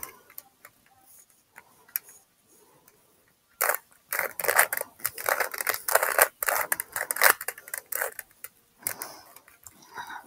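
Rubik's cube being turned rapidly by hand during a timed solve: the plastic layers click and clack. The turns are sparse and faint for the first few seconds, then come in dense runs from about three and a half seconds in.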